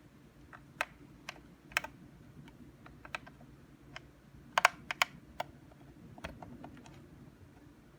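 Scattered light clicks and taps of plastic pet-fountain parts being handled, with a quick cluster of sharper clicks about four and a half seconds in.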